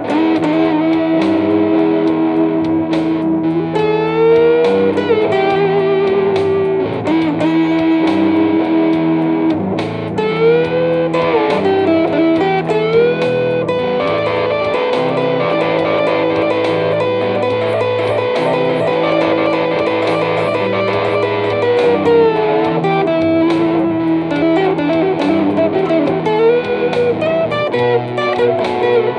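Solo blues on a Telecaster-style electric guitar through a small combo amp, picked lead lines with repeated bent notes that rise and fall back.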